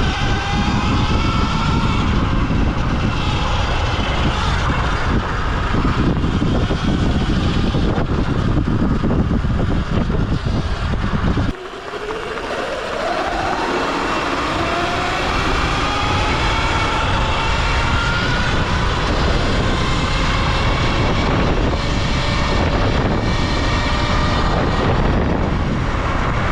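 Falcon Pro 79 electric dirt bike riding at speed: heavy wind rush on the microphone with the electric motor's whine rising in pitch several times as it accelerates. About halfway through the wind noise drops out suddenly, and the whine climbs again as it picks back up.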